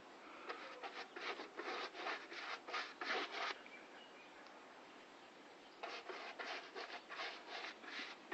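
Quick back-and-forth abrasive rubbing strokes by hand, about three a second, in two runs of about three seconds each with a pause between.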